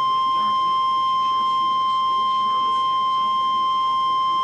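NOAA Weather Radio's 1050 Hz warning alarm tone: one steady, unbroken pure tone. It is the attention signal that comes before a tornado warning is read out.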